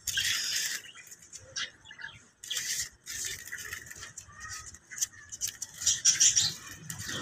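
Rustling and wing-flapping in a small wire cage as finches are let out of a bag into it, in three louder short bursts, with a few faint bird chirps between.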